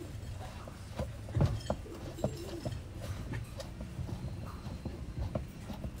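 Scattered light clicks and knocks of a screwdriver and hand working at the centre bolt of a twin-tub washing machine's plastic pulsator, to take the pulsator off.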